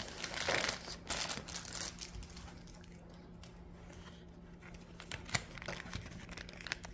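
Crinkling and tearing of a foil Pokémon booster-pack wrapper as it is handled and opened, strongest in the first two seconds, with a single sharp tap about five seconds in.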